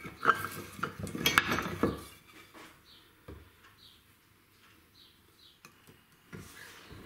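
Metal clamps clinking and knocking against each other and the wood as they are set and tightened on a glue-up. This is busiest in the first two seconds, then gives way to a couple of single clicks and a few faint high squeaks.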